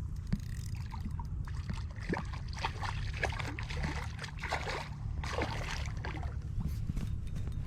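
River water trickling and gurgling over rocks in an irregular patter, over a steady low rumble.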